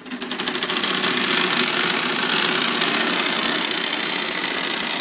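Motor-driven gear train of a model sawmill built from an A.C. Gilbert Erector set, starting up and quickly reaching speed, then running fast with a steady, rapid mechanical clatter.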